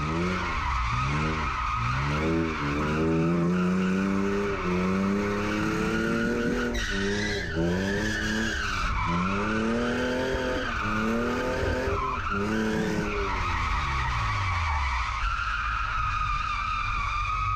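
Drift car's engine revving up and down over and over while its tyres squeal without a break through a long slide. Near the end the engine note drops away and the tyre squeal carries on.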